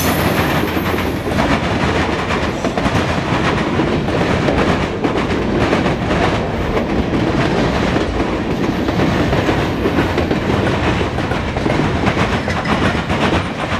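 Norfolk Southern freight cars rolling past close by: a steady, loud rumble of steel wheels on rail, with frequent wheel clicks.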